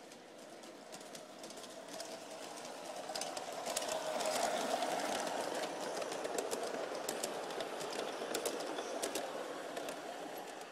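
G-scale model train running past, its motor whirring and its wheels clicking on the track. It gets louder as it approaches, is loudest about four to five seconds in as it passes close, then fades as it moves away.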